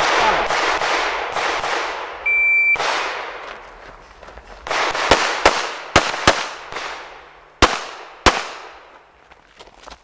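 Rapid pistol gunfire in IPSC Production-division shooting, 9mm shots in quick strings with echoing tails, thinning to single spaced shots later. An electronic shot-timer beep sounds once, briefly, about two seconds in.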